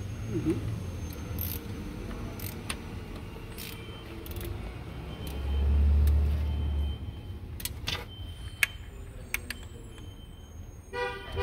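Scattered metallic clicks and taps of hand tools and parts being worked around the timing belt and pulleys of a diesel engine that is not running, with a low rumble for about a second and a half midway.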